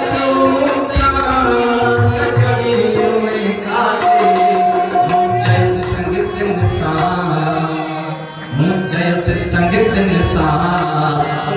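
Live South Asian folk music: a man singing through a microphone in long held notes, accompanied by a harmonium and the steady beat of a dholak drum.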